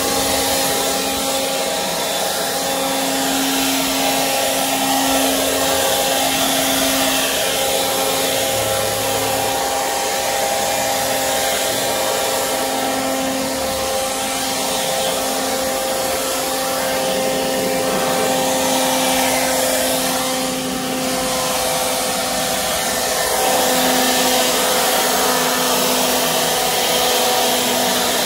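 Handheld leaf blower running steadily, blowing leaves across a concrete yard: a rush of air over a steady motor whine, slightly louder in the last few seconds.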